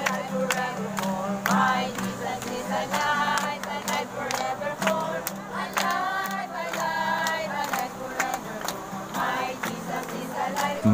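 A group of voices singing a worship song together, clapping along on a steady beat of about two claps a second, with an acoustic guitar.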